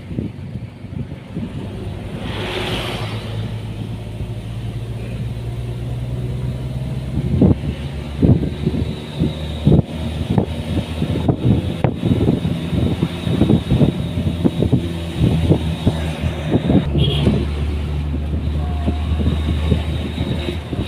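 A vehicle's engine running while on the move, its low hum changing pitch twice, with many short knocks and thumps over it from about a third of the way in.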